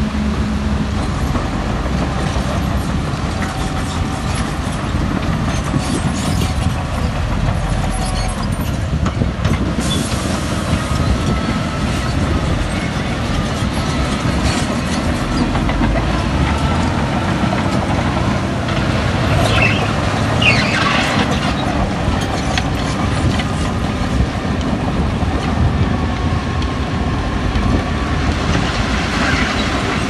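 Crawler bulldozer's diesel engine running steadily under load, with a few short high metallic squeals about two-thirds of the way through.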